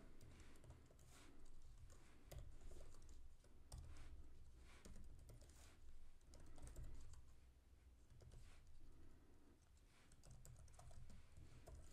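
Faint typing on a computer keyboard, irregular runs of keystrokes.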